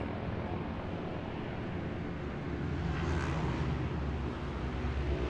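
Egli Kawasaki 1000's air-cooled inline-four engine running at a steady idle, getting a little louder about halfway through.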